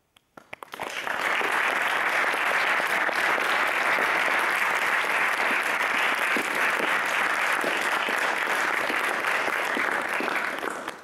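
Audience applauding. A few scattered first claps build within about a second into full, even applause, which dies away near the end.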